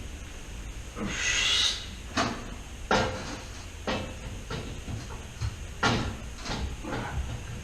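Metal clunks and knocks as dirt bike engine and frame parts are handled and fitted together: a short scraping rush about a second in, then about half a dozen separate sharp knocks.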